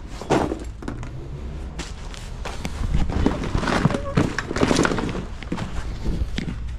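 Rustling and crinkling of a folded PVC inflatable boat hull as it is pulled open and spread out by hand on a concrete floor, with scattered soft thumps and scrapes. The handling is busiest and loudest from about three to five seconds in.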